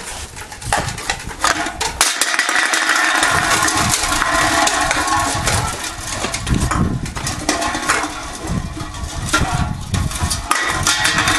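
Empty aluminium drink cans clattering, scraping and rolling on a tiled floor as puppies push and play with them: a dense run of tinny clicks and knocks over a low rumble.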